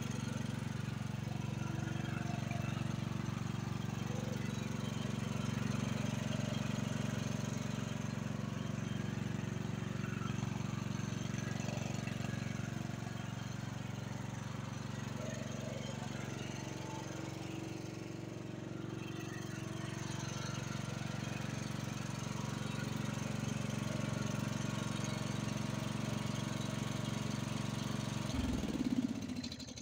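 Craftsman LT1000 riding lawn mower engine running steadily, then switched off with the key near the end, its pitch dropping quickly as it winds down to a stop.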